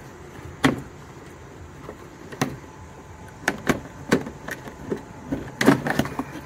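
Felt carpet liner being pulled off the underside of a 2013 Chevy Cruze trunk lid: a run of irregular sharp snaps and clacks as the stiff liner flexes and comes away from the lid, busiest in the second half.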